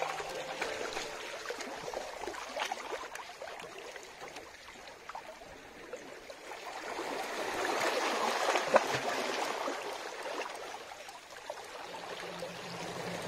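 Water washing and trickling, with many small splashes, swelling louder about halfway through and then easing off.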